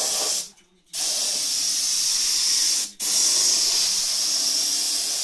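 Compressed-air gravity-feed spray gun hissing steadily as it sprays primer. It cuts off for about half a second near the start and stops again for a moment about three seconds in.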